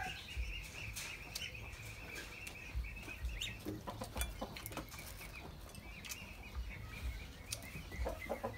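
Small birds chirping in the background, fading after the first couple of seconds and returning faintly near the end, with scattered light clicks and taps from eating at the table.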